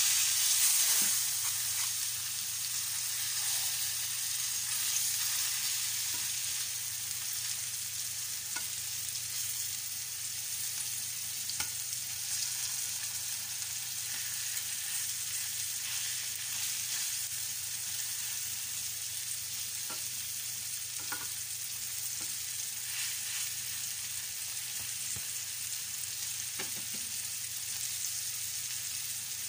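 Flour-dredged beef cubes browning in shallow oil in a pan: a steady sizzle with a few scattered small pops.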